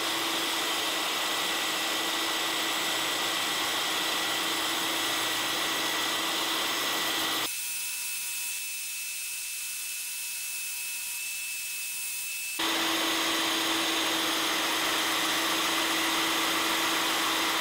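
Benchtop bandsaw running steadily with a constant hum while it cuts out small wooden bow tie splines. About seven seconds in the sound abruptly turns quieter and thinner for about five seconds, then comes back as before.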